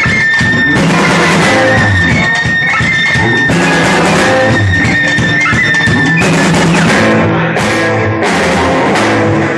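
Band music with guitar and drums playing steadily.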